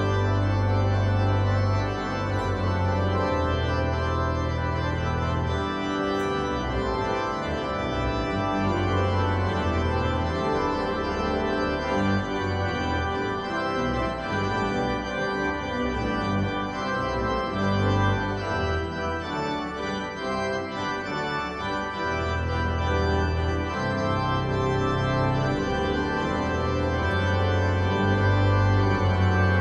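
Organ music: sustained chords over long held low bass notes, changing every few seconds.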